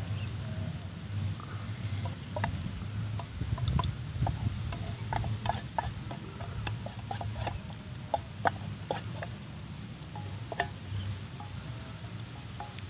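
Hot oil crackling and popping in a wok as batter-coated papaya pieces fry, in many scattered small pops. A steady high insect chirr, like a cricket, runs behind it.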